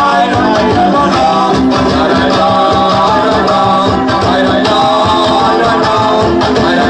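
Loud Mexican folk dance music with a steady, lively rhythm and a melody line running over it, playing without a break.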